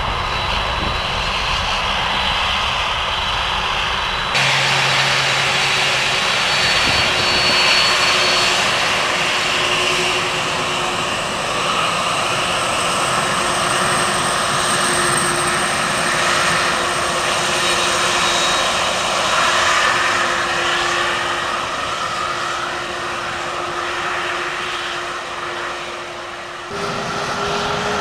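Jet airliner engines running at taxi power: a steady rush of noise with high whining tones over it. The sound changes abruptly twice, about four seconds in and near the end.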